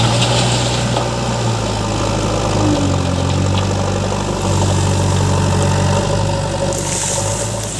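JCB 3DX backhoe loader's diesel engine running steadily at low revs, its note growing stronger and weaker every second or two. A high hiss comes in near the end.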